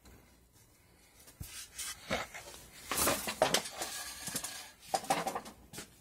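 Handling noise: a string of clicks, scrapes and clinking knocks, loudest about halfway through and again near the end.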